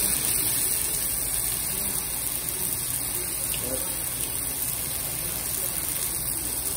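Pork slices and small octopus sizzling on a hot ridged grill plate: a steady, even hiss.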